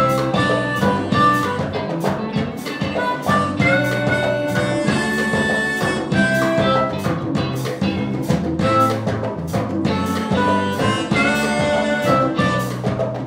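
A live band plays an instrumental jazz-funk tune: harmonica through a microphone and saxophone carry sustained melodic lines over a drum kit keeping a steady beat.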